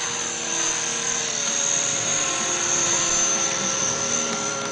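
Radio-controlled model helicopter flying close by, its rotor and motor giving a steady whine made of several held tones, the highest one shrill and strong.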